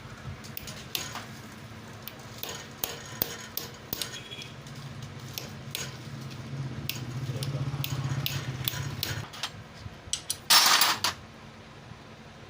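Metal tools and loose engine parts clinking and clattering, a string of sharp clicks. Under it runs a steady low hum that grows louder for a few seconds in the middle, and near the end comes a short, loud hiss.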